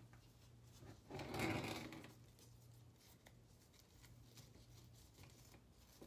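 Ribbon rustling and sliding against a mesh-covered glass jar as hands pull it around the rim and tie it, with one louder rustle lasting about a second, about a second in, and faint small handling ticks.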